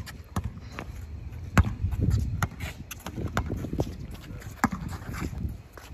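A basketball bouncing on the court and players' footsteps during play: irregular sharp thuds, the loudest about a second and a half in.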